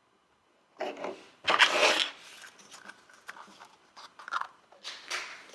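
Hands handling a plastic Mashems blind capsule and working it open: rustling and scraping of plastic. Two bursts in the first two seconds, the second the loudest, then smaller scrapes and clicks.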